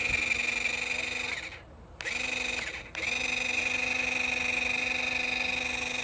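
Electric water gun's battery-powered pump motor whining steadily as it fires. It runs in three spurts: one of about a second and a half, a short one, then a long one from about three seconds in.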